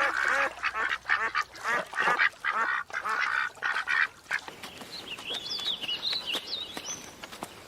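A flock of ducks quacking, many short calls overlapping rapidly for about the first four seconds. After that it turns quieter, with faint high chirps of a small bird.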